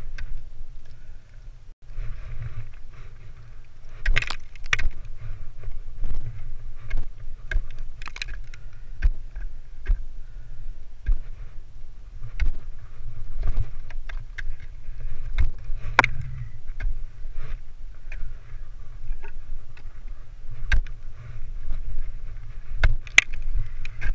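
Ice axe picks and crampon points striking and chipping into water ice while climbing: repeated sharp thunks at an uneven pace, some a second or two apart, over a low steady rumble, with metal climbing gear clinking.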